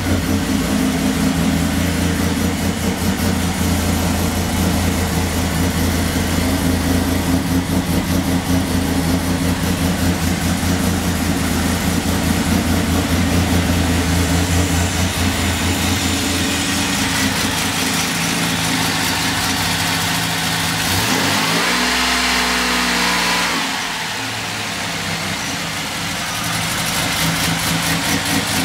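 Chevrolet Beretta V6 with a lope cam idling with a choppy, uneven beat. It revs once briefly about three quarters of the way through and then drops back to idle. With the new timing chain the valve-train tick is gone, and the owner puts the remaining noise down to exhaust leaks.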